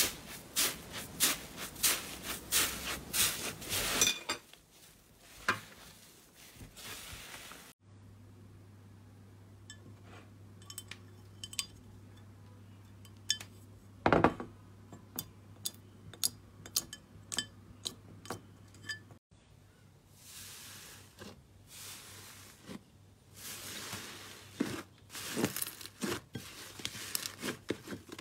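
Slime pressed, squeezed and poked by hand in glass containers: dense sticky crackling and popping, with sharp clinks against the glass, the loudest a little past the middle. A steady low hum runs under the middle stretch.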